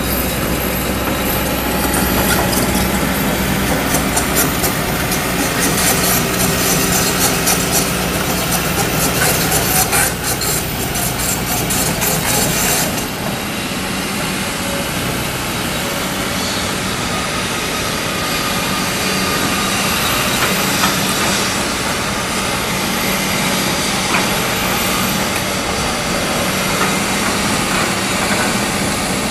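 Kobelco SK200 hydraulic excavator's diesel engine running steadily under working load. A rapid clatter rides over it for several seconds in the first half, and the sound changes abruptly about 13 seconds in before the engine runs on steadily.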